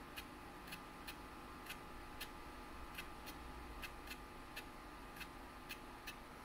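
Apple SuperDrive floppy drive in a Macintosh Classic clicking steadily, about two clicks a second, while it reads a disk: a sign that the drive is working. A faint steady hum from the running computer lies underneath.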